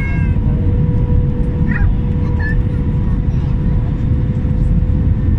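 Airbus A319 cabin noise on approach: a steady low rumble of engines and airflow with a faint steady hum. A couple of brief high chirps about two seconds in.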